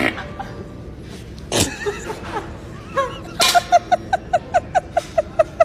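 A sudden fart noise about a second and a half in, then a woman bursting into a quick run of high-pitched laughs, about five a second.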